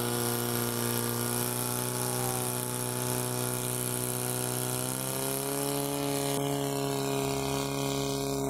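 A motor running with a steady, even hum. Its pitch rises slightly about five seconds in.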